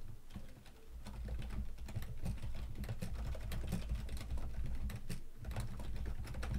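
Computer keyboard typing: a quick run of keystroke clicks, with a short lull just after the start, over a steady low hum.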